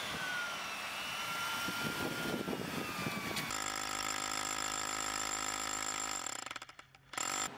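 Rotary hammer drill boring into stone paving: steady rapid hammering from about three and a half seconds in that dies away, then a short burst near the end. Before it, a mechanical whine slides slowly down in pitch.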